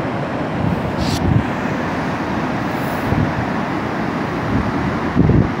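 Chaudière Falls pouring over its ice-covered ledges, the river swollen by rain: a steady rushing roar of falling water, with wind gusting on the microphone about a second in and near the end.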